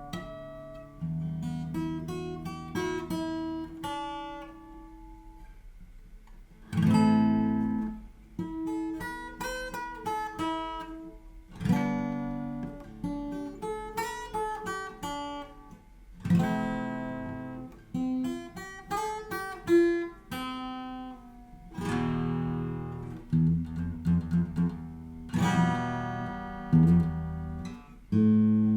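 Yamaha FG850 all-mahogany dreadnought acoustic guitar being played, picked notes and arpeggios broken by full strummed chords every few seconds.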